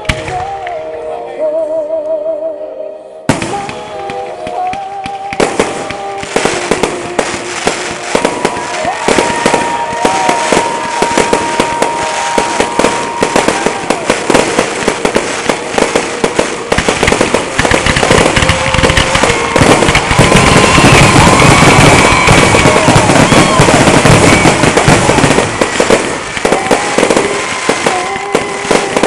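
Aerial fireworks going off: after about three seconds of music alone, a rapid run of bangs and crackling shell bursts starts and grows denser and louder, peaking about two-thirds of the way through. Music plays underneath throughout.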